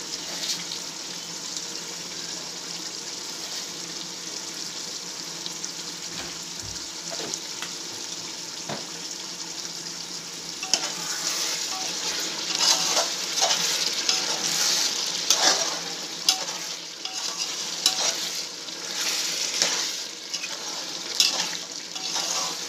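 Chicken and tomato masala sizzling in a large metal pot, with a steady hiss. From about ten seconds in, a spoon stirs and scrapes through it in uneven strokes, about one a second.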